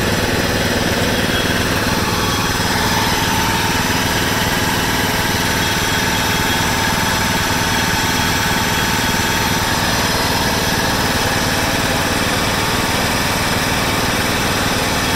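1996 John Deere LX176 lawn tractor's Kawasaki FC420V single-cylinder engine running steadily, revived after sitting for years and running on old gas without the carburettor being gummed up.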